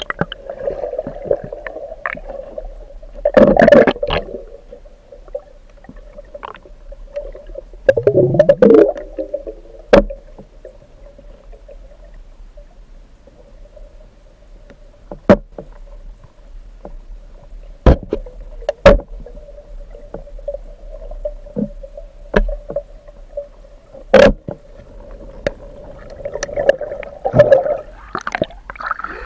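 Underwater sound of a strong river current heard from a submerged camera: a steady muffled hum with scattered sharp clicks and knocks, and three loud rushes of bubbling water, about three seconds in, about eight seconds in, and near the end.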